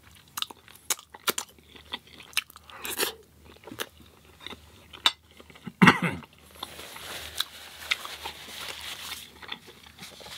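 Close-up crunching and chewing of crisp fried food in a person's mouth, many small crunches in an irregular run, with one brief louder sound that falls in pitch about six seconds in.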